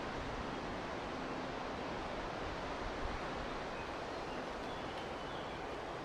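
Steady wind through forest foliage, an even rustling hiss. A few faint high chirps are heard in the middle.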